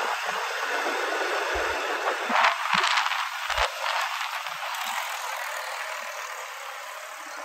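Rushing wind and road noise from riding along a paved road, with no clear engine note. It surges louder for a couple of seconds near the middle, then eases off.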